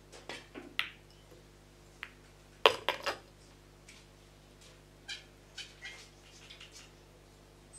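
Pool balls clacking on a 9-ball table as a shot is played: sharp clicks of cue and balls striking, the loudest crack about two and a half seconds in with two quick follow-up knocks as a ball is potted, then a few lighter clicks as the cue ball rolls on.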